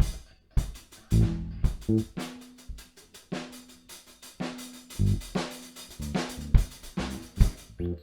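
Background music led by drums, with many sharp hits in quick succession and short pitched notes between them.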